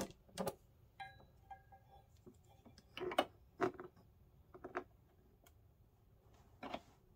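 Scattered light clicks and taps of a plastic HDMI plug and cable being handled and pushed into the port on the back of a monitor, with a faint brief ringing note about a second in.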